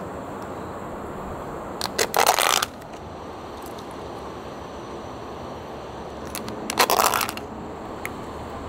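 A soup spoon scraping and clinking against a plastic sauce tub while scooping sauce, in two short rattling bursts, about two seconds in and again near seven seconds, over a steady low background hiss.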